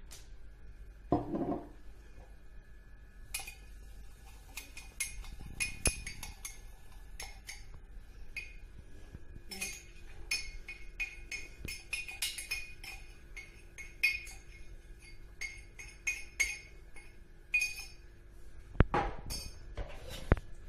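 A metal spoon clinking quickly and irregularly against a small glass while baking soda is stirred and slaked with vinegar. A dull knock comes about a second in, and a few more knocks near the end.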